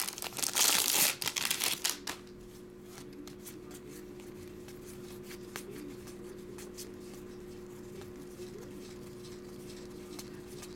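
Foil wrapper of a baseball card pack crinkling and tearing for about two seconds, then faint ticks of cards being handled over a low steady hum.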